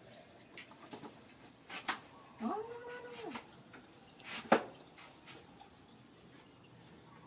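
A baby monkey gives one whining call about a second long, rising and then falling in pitch. Short sharp clicks come before and after it, the loudest a little after four seconds in.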